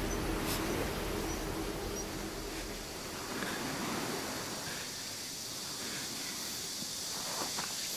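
Steady outdoor ambience, a soft even hiss, with a low hum underneath that fades out about three seconds in.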